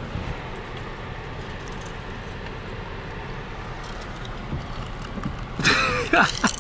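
Steady road and engine noise inside a moving car. Near the end a brief, loud voice-like sound with a bending pitch cuts in.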